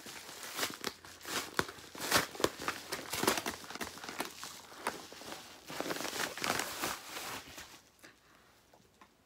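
A shipping package being opened by hand: its wrapping is handled in a run of irregular rustles and sharp crackles, which stop about eight seconds in.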